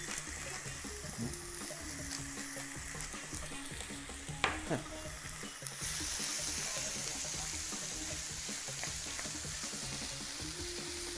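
Diced chicken breast in a spice marinade sizzling in hot olive oil in a non-stick frying pan while being stirred with a wooden spoon, browning; the sizzle gets louder about six seconds in. A single sharp knock about four and a half seconds in.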